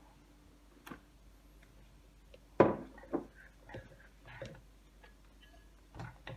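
A few separate knocks and taps of a ceramic bowl and an electric hand mixer against a ceramic mixing bowl, with one sharp knock about two and a half seconds in and smaller taps after it; the mixer motor is not running.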